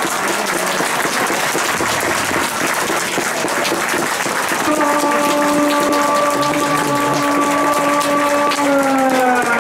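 Applause and cheering after a goal, a thick patter of many hand claps. From about halfway, one steady held tone sounds over it for several seconds and sags in pitch near the end.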